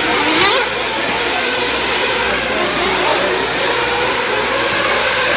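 Radio-controlled off-road race cars running around a dirt track, their motors whining and rising and falling in pitch as they accelerate and brake, with a short sharp hiss about half a second in.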